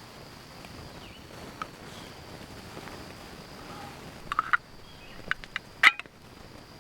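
Campfire crackling, with a few sharp pops and snaps in the second half, the loudest near the end, over a steady high insect buzz.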